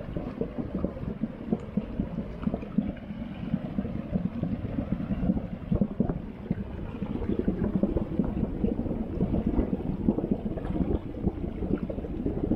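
Geothermal hot stream flowing and boiling, a steady low rumble full of irregular small pops and gurgles.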